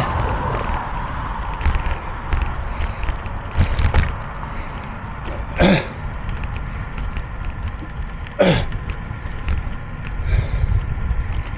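Heavy breathing of a person working hard on an uphill climb: two loud, forceful exhales about three seconds apart, over a steady low rumble of wind and movement.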